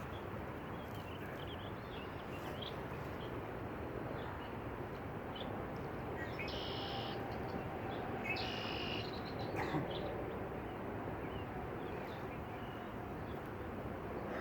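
Two short bird calls about halfway through, over a steady outdoor background noise.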